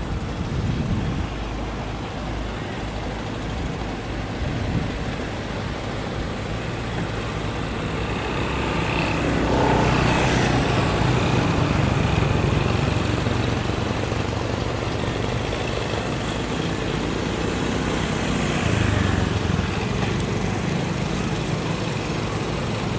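A motor engine running steadily with a low drone, growing louder about nine seconds in and staying loud.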